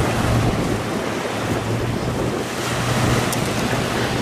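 Wind on the microphone and choppy sea, with the steady drone of fast-moving police boat engines that fades briefly in the middle.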